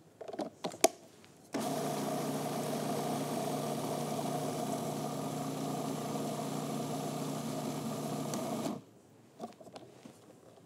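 A few plastic clicks as the food processor's lid is fitted and locked, then the food processor's motor running steadily for about seven seconds, grinding soaked almonds and olives into a paste. It starts suddenly and cuts off sharply.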